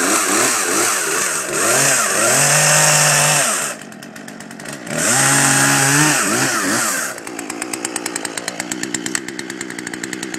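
Poulan P3314 two-stroke gas chainsaw revving up and cutting through a small log at full throttle, the throttle let off briefly about four seconds in. About seven seconds in the log is through and the engine drops back to a steady idle.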